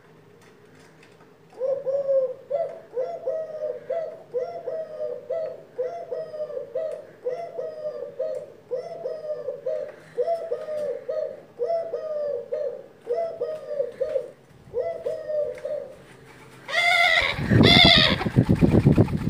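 Pet dove cooing over and over, one short coo about every second, bowing as it calls. Near the end a louder, closer call comes with a heavy rumble as the bird is right at the microphone.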